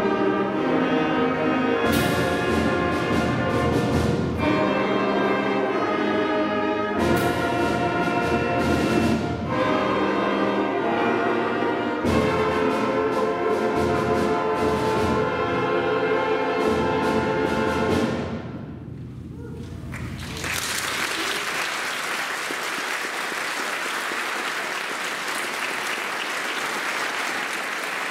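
Middle school concert band with brass playing loud sustained chords with accented hits, closing a piece; the last chord dies away about 18 seconds in. The audience then applauds steadily.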